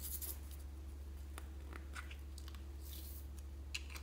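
Hands handling a hard plastic Hello Kitty toy: scattered light clicks and scrapes of fingers and nails on the plastic, with a sharper click near the end, over a steady low hum.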